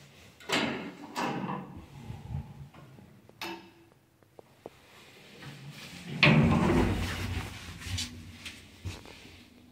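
Doors of a 1990 ZREMB passenger lift being worked: two sliding clatters near the start and a click, then about six seconds in the loudest, a long rolling clatter with a low rumble as the doors run shut.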